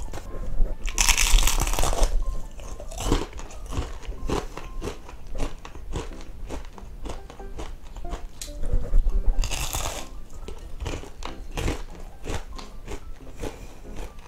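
Crispy deep-fried chicken skin being bitten and chewed close to the microphone: a run of crunchy chewing with two louder, longer crunches, about a second in and near ten seconds in.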